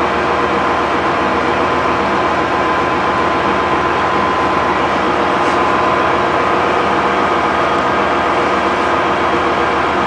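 Container ship's machinery running: a steady, loud drone with several constant hum tones under a wash of noise.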